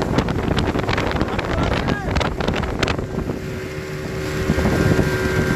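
Speedboat engine running at speed with a steady whine, and wind on the microphone. Rapid sharp knocks fill the first three seconds, then the sound settles into steadier running.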